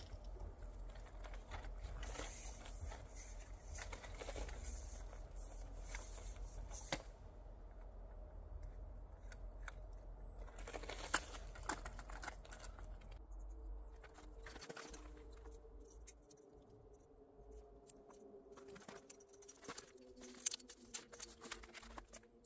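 A pigeon cooing repeatedly in the background during the second half, over a low rumble and scattered light clicks and handling noises.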